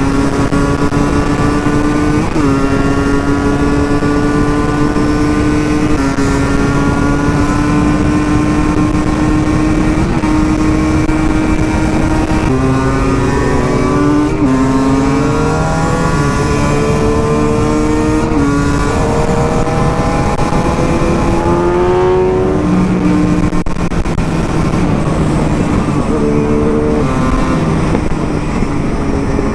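2007 Husqvarna SM 125 two-stroke single-cylinder engine running under way, holding steady revs for a few seconds at a time with sudden changes in pitch at gear changes and a climb in revs about twenty seconds in.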